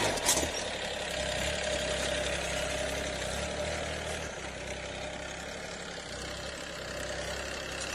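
Farm tractor's diesel engine running steadily under work, with a faint high whine that falls slightly midway.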